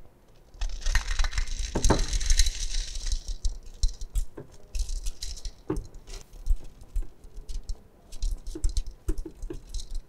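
Washed, wet gravel tipped from a 4.75 mm metal sieve into a metal pan: a rush of pattering grains for about two seconds, then scattered clicks and rattles of stones and the sieve's rim against the pan.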